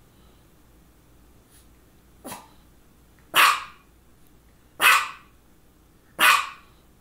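Small white long-haired dog barking: one short, quieter bark a little past two seconds in, then three loud single barks about a second and a half apart.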